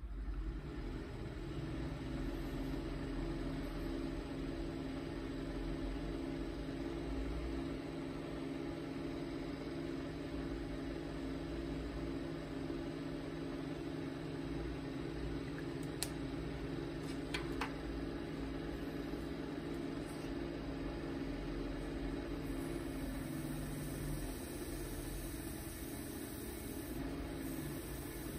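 Small electric motor of a cue lathe switching on and running steadily, spinning a billiard cue with a low, even hum. A couple of faint ticks about halfway through.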